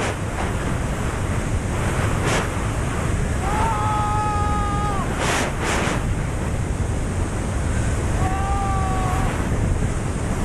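Freefall wind rushing over an action camera's microphone during a tandem skydive, a loud steady roar with brief gusty swells. Twice, a drawn-out high tone sounds over the rush for a second or so.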